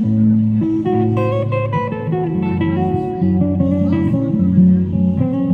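Archtop guitar being played: chords and single-note melody lines over moving low notes, each note held into the next with no break.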